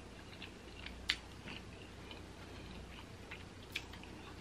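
Quiet eating sounds: soft chewing with a few small ticks, and two sharp clicks, one about a second in and one near the end, as a boiled prawn is handled and eaten with the fingers.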